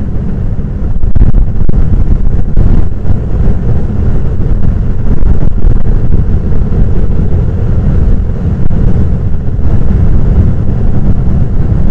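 Heavy surf breaking and washing up a sand beach, a loud, steady low rush, with wind buffeting the microphone.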